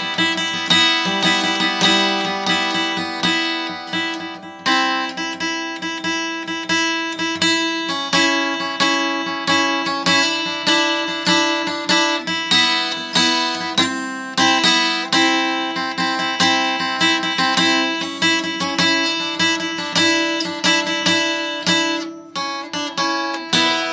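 Acoustic guitar improvisation: chords plucked and strummed in a steady rhythm over a held low note, with a chord left ringing near the end.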